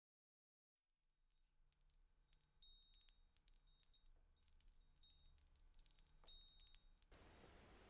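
Faint wind chimes tinkling, fading in from silence: many light strikes with short high ringing notes at a few fixed pitches. A soft hiss of outdoor ambience comes in near the end.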